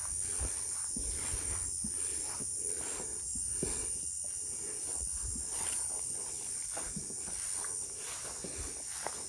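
Night insects trilling steadily in a high, unbroken chorus, over irregular footsteps and rustling through dry vegetation.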